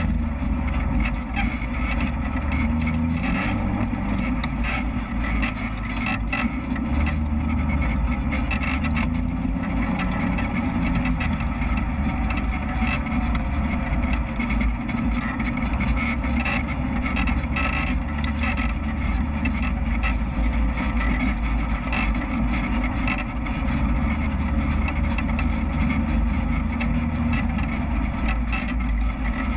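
Off-road vehicle's engine running as it drives a dirt trail, the engine note rising and falling with the throttle. Frequent short knocks and rattles run over it.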